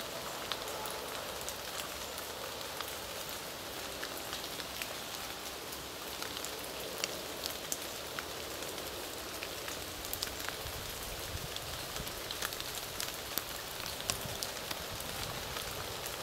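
Light rain pattering: a steady hiss with scattered, irregular drop ticks.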